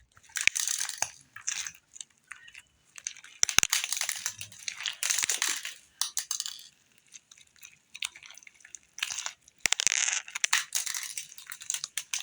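Green Bingsu slime being worked by hand, its plastic Bingsu beads crunching and crackling in irregular bursts with short pauses between them.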